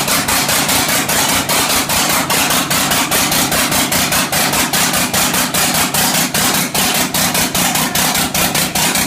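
1967 Oliver 1750's rebuilt Waukesha 310 six-cylinder diesel running steadily with a loud, sharp, even beat of about six knocks a second. This is its first run after an overhaul, with the timing off.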